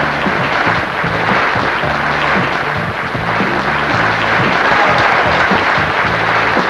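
An audience applauding steadily over music whose bass line moves in short, repeated notes.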